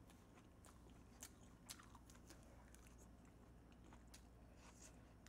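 Faint close-miked chewing of okonomiyaki: soft wet mouth clicks and smacks scattered irregularly, a couple of sharper ones a little after a second in, over a low steady hum.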